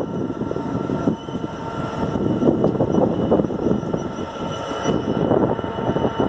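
Class 66 diesel freight locomotive running with its train: a steady loud rumble that surges unevenly, with a high whine held above it.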